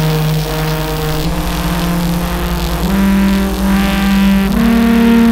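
Diesel locomotive engine running loud, its pitch stepping up three times as the throttle is notched up.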